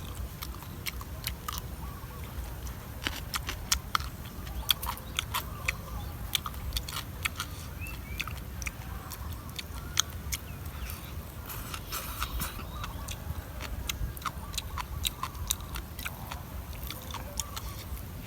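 Close-up chewing and crunching of green papaya salad: irregular crisp crunches and wet mouth clicks, some sharper than others, over a steady low rumble.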